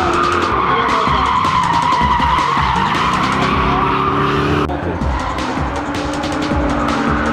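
Drift cars sliding through a corner: a sustained tyre squeal over engines revving up and down. It changes abruptly about two-thirds of the way through as another car is heard drifting.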